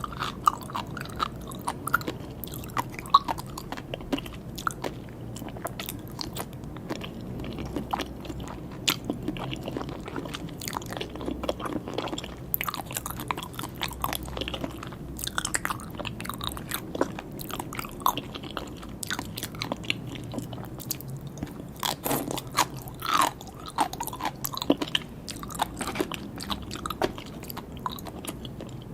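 Close-miked chewing and biting of sea grapes and salmon sashimi, with many small crisp pops and clicks in quick irregular succession.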